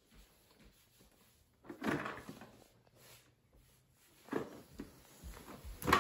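Cardboard toy box being handled and turned over, with brief scuffs and knocks about two seconds in and again over the last two seconds.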